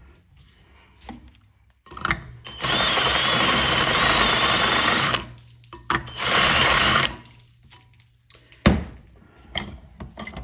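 Cordless drill boring through oiled metal: one run of about two and a half seconds with a wavering high whine from the bit, then a shorter run of about a second. A sharp knock follows near the end.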